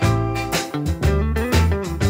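Background music with a bass line and a steady beat of about two beats a second.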